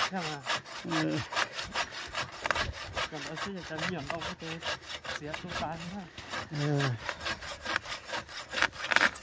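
Hand saw cutting through wood in quick, regular back-and-forth strokes.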